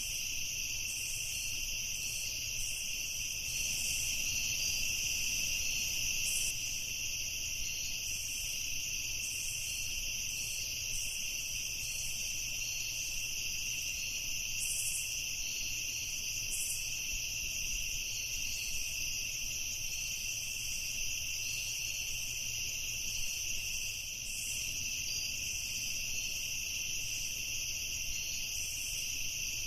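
Night insect chorus of crickets trilling steadily without pause, with a lower and a higher continuous trill sounding together.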